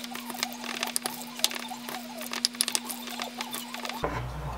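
Wooden spoon stirring thick Greek yogurt with diced bacon in a ceramic bowl: quick, irregular sticky clicks and soft scrapes against the bowl.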